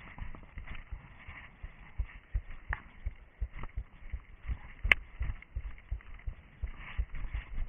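Slow, irregular footfalls of an orienteer slowing to a walk on forest ground, as low thuds picked up by a head-mounted camera, with one sharp click about five seconds in.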